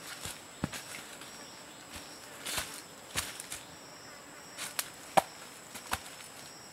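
A handful of irregular sharp snaps and knocks, the loudest about five seconds in, as green plant stems and sticks are cut and handled, over a steady high insect whine.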